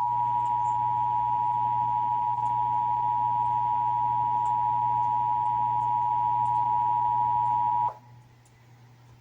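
Emergency Alert System attention signal for a Required Monthly Test: the two-tone alert (853 and 960 Hz sounded together), held steady for about eight seconds and then cutting off suddenly.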